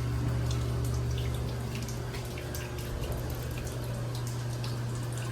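A steady low machine hum with many faint, irregular ticks over it.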